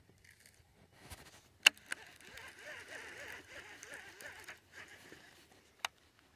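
Baitcasting reel being cranked for about three seconds, a steady whir with a regular ripple from the turning handle as line is wound in, after a loud sharp click. Another sharp click comes near the end.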